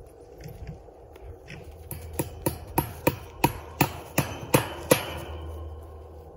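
A hammer striking about nine times in a steady run, roughly three blows a second, driving a fastener into a wooden corral post.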